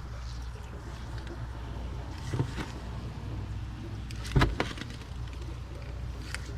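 Knocks and clicks of hands and tools working under a car, over a steady low hum; the loudest knock comes a little past halfway.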